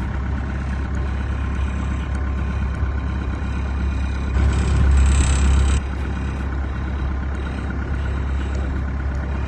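Small fishing boat's motor running steadily under way, a low drone with a constant pitch. It swells louder for about a second and a half midway, then settles back.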